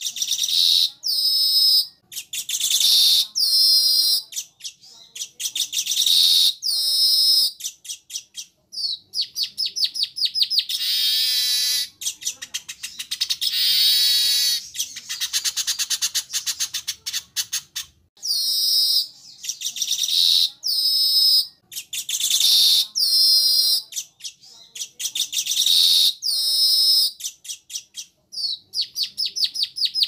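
Weaver bird song: short, high chattering phrases repeated about once a second, with a long buzzy, rapidly pulsing trill in the middle, then the short phrases again.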